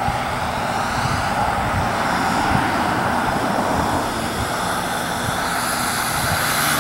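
Bigstick 60 radio-control model airplane's engine running steadily at low throttle as the plane comes in to land and rolls out on grass.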